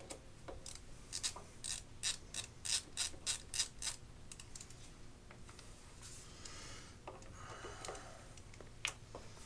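Hand hex driver tightening the set screws that lock a tool holder in a South Bend milling machine's spindle. A run of sharp clicks, about three a second, comes first, then a rougher scraping sound, then one last click near the end.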